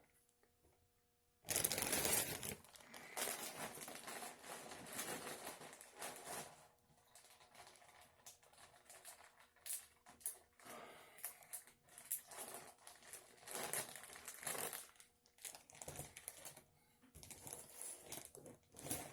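Hands sorting through a box of trading cards and packaging: irregular rustling and crinkling with light clicks and taps, starting after a brief silence at the beginning.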